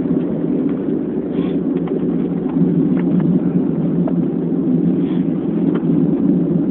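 Wind blowing across a phone's microphone: a steady low rush, with a few faint ticks.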